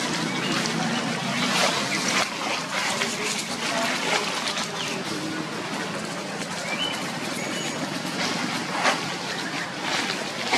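Dry leaf litter rustling and crackling in many short irregular snaps, with a few brief high bird chirps over a steady outdoor hiss.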